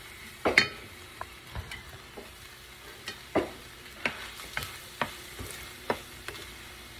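Spatula stirring chopped shrimp in a hot skillet, knocking and scraping against the pan in irregular strokes, over a faint steady sizzle.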